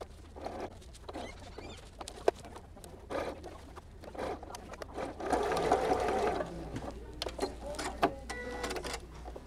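Janome computerized sewing machine stitching through the layers of a bag handle in short bursts, with one longer, louder run about five seconds in. Sharp clicks and fabric handling come between the runs.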